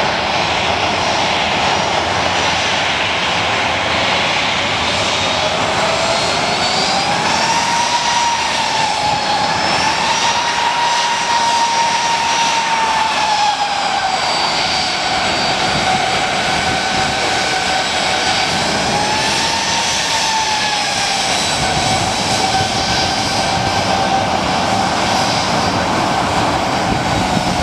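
Boeing 737-900's CFM56-7B turbofan engines at taxi power: a loud, steady rushing with a whine over it. The whine rises about seven seconds in, sinks back, and swells and falls once more about twenty seconds in.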